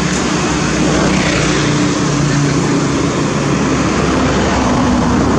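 A steady motor drone with low humming tones under a loud even hiss, holding level throughout.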